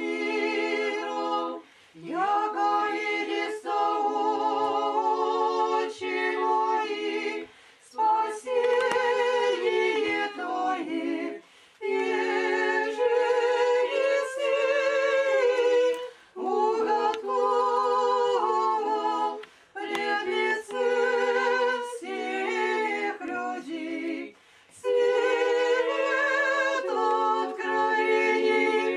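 Orthodox church choir singing a cappella: a liturgical chant in sustained phrases of a few seconds each, broken by short pauses.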